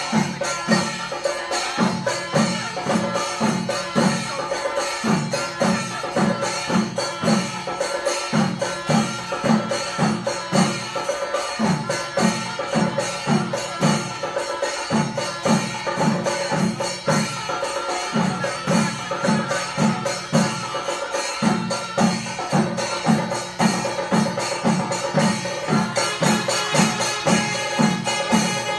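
Kerala chenda drum ensemble played with sticks: a dense, fast rattle of stick strokes over a deep beat about twice a second. The deep beat drops out briefly every three seconds or so, then comes back.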